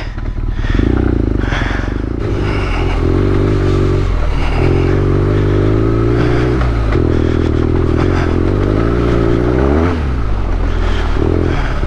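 BMW R nineT's 1170 cc air/oil-cooled boxer-twin engine running under way, its note rising and dropping several times as the throttle is opened and closed, with a climbing rev just before the end.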